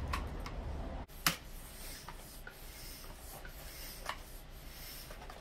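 Hands rubbing and handling an inflated bicycle inner tube while checking it for a puncture. There is a sharp click just after a second in and a softer one near four seconds. A low rumble cuts off suddenly about a second in.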